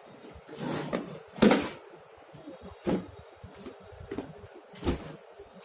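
Tools and items being handled in a tool bag: a rustling shuffle, loudest about a second and a half in, then a few short knocks and clicks.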